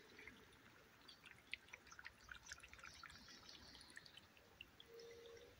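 Near silence with the faint trickle and scattered drips of a small forest creek.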